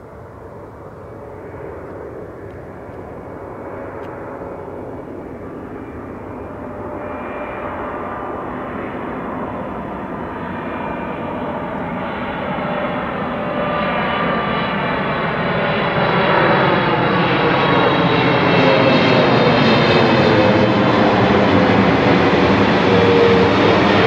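Boeing 777 freighter's twin GE90 turbofan engines on landing approach, the jet noise growing steadily louder as the aircraft comes in low overhead. A steady fan whine runs through the rushing noise, with a sweeping, phasing quality as it nears.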